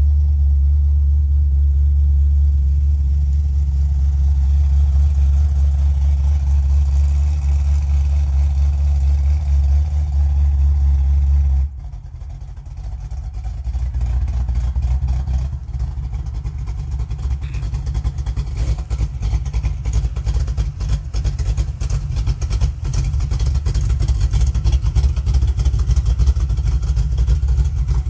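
1951 Chevrolet pickup's engine running with a steady low drone. About twelve seconds in the sound changes abruptly to an uneven, pulsing run that grows louder toward the end.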